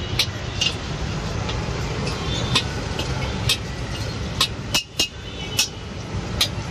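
Metal ladle and spatula clanking and scraping against a wok as fried rice is stir-fried and tossed, with sharp clinks about once or twice a second over a steady low rumble.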